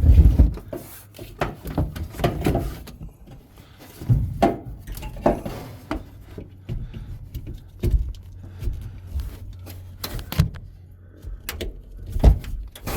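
Washdown pump strainer parts being handled and fitted back together: scattered clicks, knocks and rubbing, with a faint low steady hum underneath.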